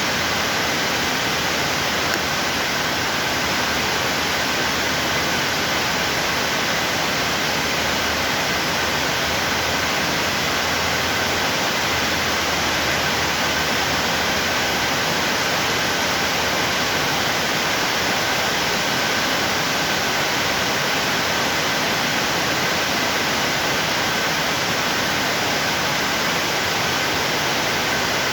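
National NC470M mill-and-drip coffee maker running: a steady, even hiss with two faint constant high whines.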